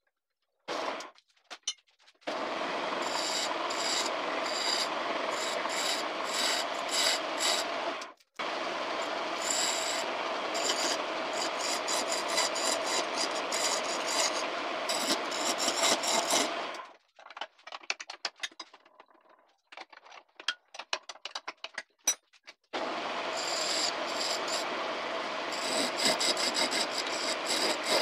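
Hand-made steel chisel cutting a maçaranduba hardwood blank spinning on a homemade wood lathe: a continuous rasping scrape of the tool shaving the wood. It starts about two seconds in, breaks off briefly near 8 s, and thins to scattered light scrapes from about 17 s. Steady cutting resumes around 23 s.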